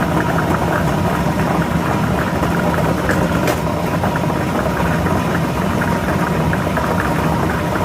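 Lotto ball machine running: a steady motor hum with balls clattering continuously as they are mixed.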